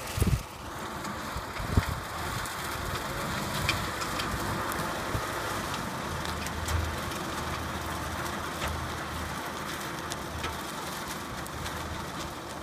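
Tractor running steadily while it pulls a manure spreader that is throwing manure, heard as a steady engine drone under a rushing, spattering noise. A couple of low thumps in the first two seconds.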